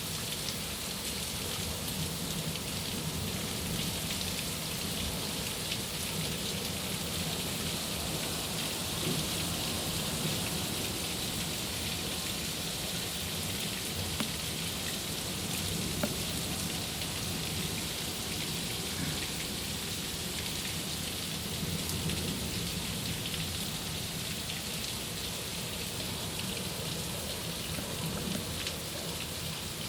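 Heavy desert monsoon rain pouring steadily: a dense, even hiss of rain with a few separate louder drop ticks.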